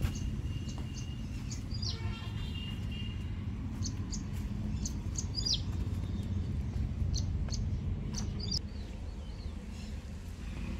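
Small birds chirping, short high calls and a few quick sweeps scattered through, over a steady low rumble.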